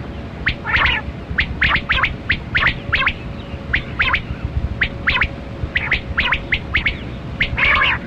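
Male rain quail (kali kirak batera) calling: short, sharp, high notes repeated in quick pairs and short runs, about two to three a second, with a fuller, noisier call about a second in and another near the end. A steady low hum and hiss run underneath.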